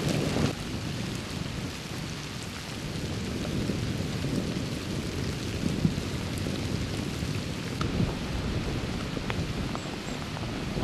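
Freezing rain falling steadily on the woods and the tree stand, a continuous hiss with a low rumble under it and a few light ticks.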